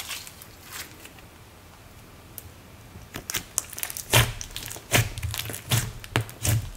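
Thick clay-mixed slime being folded and pressed by hand, crackling and popping. Mostly quiet at first, then a run of loud squishy pops from about three seconds in.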